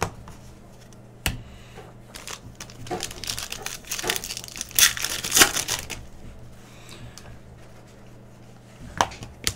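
Plastic foil wrapper of a Panini Prizm basketball pack being torn open and crinkled, loudest around the middle, with a couple of sharp taps near the start and one near the end.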